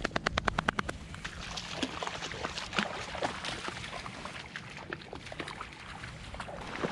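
Shallow marsh water sloshing and splashing. It starts with a quick, even run of sharp clicks in the first second, then goes on as scattered small splashes and clicks.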